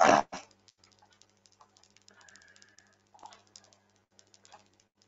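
A single short cough at the very start. After it come faint, scattered computer mouse and keyboard clicks over a low, steady electrical hum.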